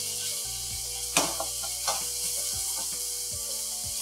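Sliced beef sizzling in hot oil and garlic in a wok, stirred with a metal wok ladle that knocks and scrapes against the pan a few times, loudest about a second in. Background music with sustained tones plays underneath.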